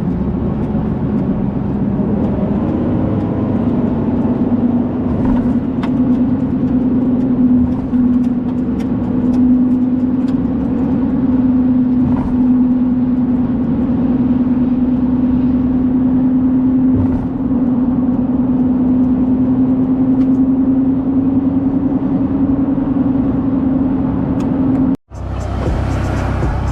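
A vehicle driving at steady speed, heard from inside the cabin: a constant engine and road drone with a steady hum. About a second and a half before the end it cuts off suddenly and a different, brighter sound takes over.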